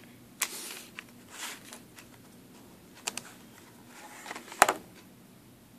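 Handling noise: a few sharp clicks and short rustles as a hand-held camera is moved about, the loudest click a little past the middle.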